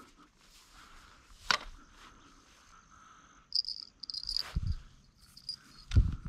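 Crickets chirping in high, pulsing trills, with a sharp click and two low thumps.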